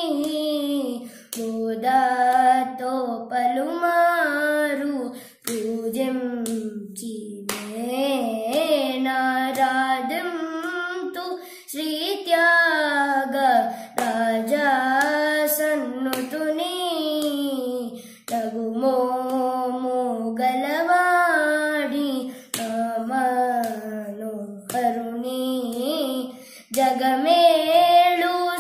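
A boy singing a Carnatic krithi in raga Madhyamavathi, unaccompanied, with gliding, ornamented notes. His hand claps and taps against his thigh now and then, keeping Adi tala.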